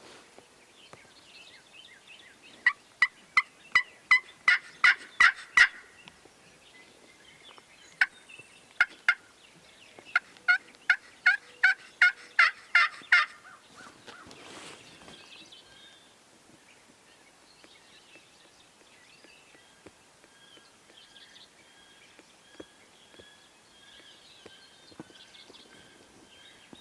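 Turkey yelping: two runs of about ten loud, evenly spaced yelps, the first about three seconds in and the second about ten seconds in, with two single yelps between them.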